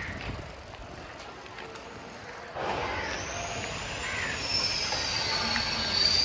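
Bicycle ridden over rough concrete: tyre noise and mechanical clicking and rattling from the bike, suddenly louder about two and a half seconds in, with a high whine that rises and falls.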